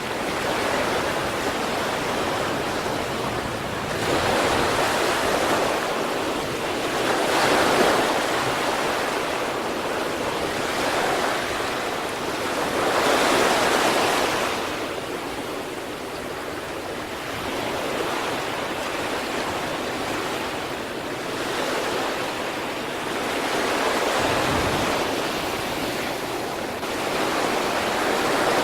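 Sea waves breaking on the shore, a continuous hiss of surf that swells with each wave several times.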